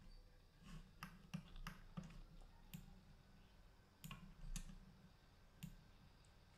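Faint, irregular clicks of a computer mouse, about nine over the span.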